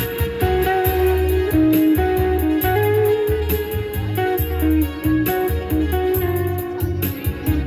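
Dance music played over a loudspeaker, a stepping melody over a steady beat.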